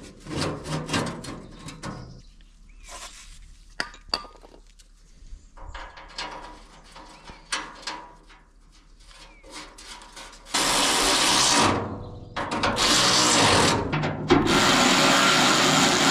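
Scattered knocks, clicks and scraping as a steel sheet panel is handled and fitted onto a concrete mixer. After about ten seconds a cordless ratchet wrench runs in three bursts to drive the panel bolts, the last burst held steady.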